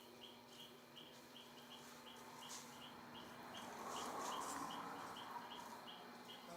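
Faint, regular chirping, about three short high chirps a second, over a steady low hum. A soft swell of rushing noise rises and fades in the middle.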